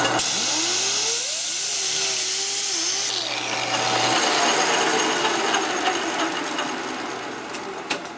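A 90-degree angle grinder with a sanding disc runs against an aluminium ball spinning in a metal lathe, smoothing the ball's profile. The grinder's high sanding hiss and hum stop about three to four seconds in. The lathe keeps running and fades toward the end.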